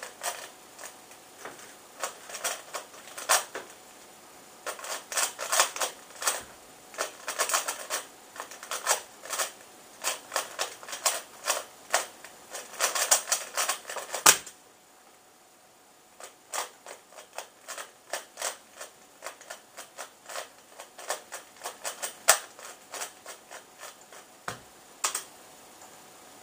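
3x3 Rubik's cube being turned at speed in a speedsolve: a fast, uneven run of plastic clicks and clacks, ending in one loud sharp knock about fourteen seconds in. After a short pause the cube is turned again, more slowly, with sparser, softer clicks.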